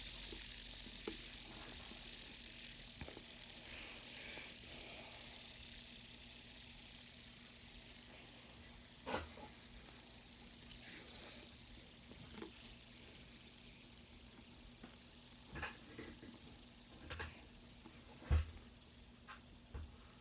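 Two fidget spinners, a football-themed one and a silicone one, whirring on their bearings: a faint high hiss that slowly fades as they spin down. A few light knocks or taps come through, the loudest a little before the end.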